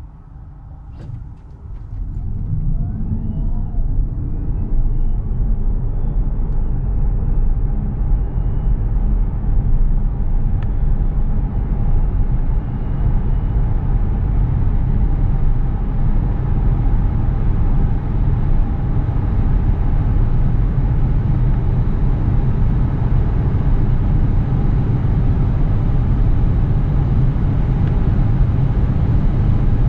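Inside the cabin of a Peugeot 508 Hybrid accelerating hard from a standstill on electric power alone, with the petrol engine off. A faint whine climbs in pitch over the first few seconds of the pull. Tyre and road noise rises about two seconds in and then holds steady and loud as the speed keeps climbing.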